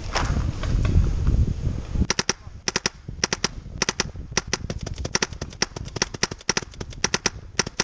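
Paintball marker firing in short rapid strings of sharp pops, beginning about two seconds in and running as bursts of several shots each. Before the shooting there is a low rumbling noise of movement.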